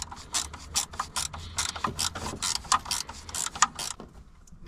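Socket ratchet wrench clicking in a quick run, about five clicks a second, as it is worked back and forth on a bolt; the clicking stops about four seconds in.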